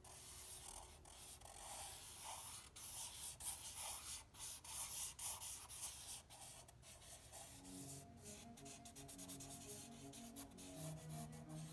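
Felt tip of a black permanent marker scratching across paper in quick strokes while drawing. About eight seconds in, faint music of held low notes joins it.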